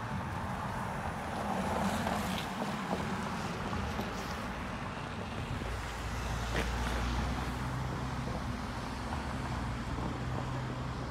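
City street traffic noise, with a vehicle's engine running close by from about halfway through as a low, steady rumble.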